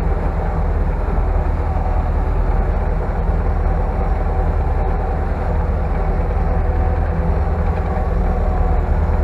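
Tractor engine running steadily as the tractor drives, heard from inside the cab as a continuous low drone.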